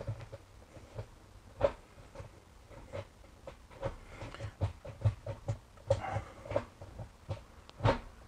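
Shift linkage of a BMW E46's ZF S5D 320Z five-speed manual gearbox clicking and clunking as the shifter is worked through the gears, heard from under the car. A series of irregular light clicks and knocks, the loudest about one and a half seconds in and another near the end.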